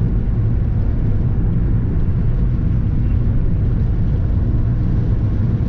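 Steady road and engine noise inside the cabin of a moving Ford Focus: a constant low drone and tyre rumble at cruising speed, unchanging throughout.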